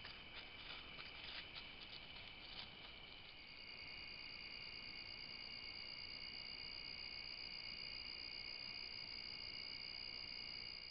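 A steady night chorus of crickets and other insects, a continuous high-pitched trill in several layers. In the first three seconds or so it is broken by a scatter of light crackles, which fit a bear's steps in dry leaf litter. After that the chorus alone continues, with its highest layer louder.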